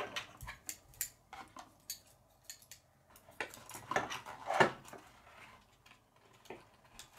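Scissors snipping through a thin cardboard box: a series of short, crisp cuts spread apart, the loudest three coming about halfway through.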